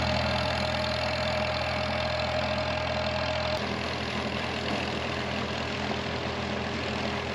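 Farmall tractor engine running steadily under load, driving a PTO-powered flood-water pump, with a steady high tone over it. About halfway through, the tone stops and water gushing out of the pump's discharge pipe into the drainage ditch is heard, with the engine still running underneath.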